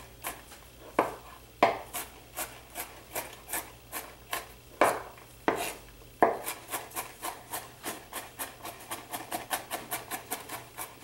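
Chef's knife chopping garlic on a bamboo cutting board: sharp knocks of the blade on the wood, spaced out at first, then a steady run of about three chops a second from a little past halfway.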